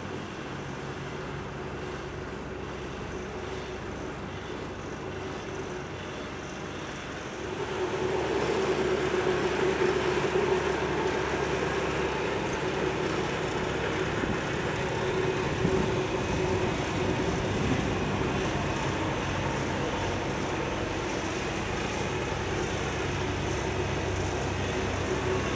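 Heavy diesel engines of a Scania tipper truck and an asphalt paver running steadily, with a steady mid-pitched hum over the engine noise. The sound gets clearly louder about seven and a half seconds in and stays at that level.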